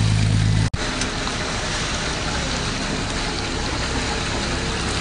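Boat engine noise: a steady low engine hum that breaks off abruptly under a second in, followed by a steady rushing wash of engine and water noise.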